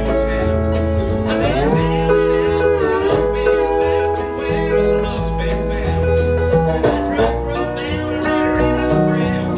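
Homemade skateboard-body electric lap steel guitar played with a slide, its sustained notes gliding up into pitch about a second and a half in and again near seven seconds, over a stepping bass line.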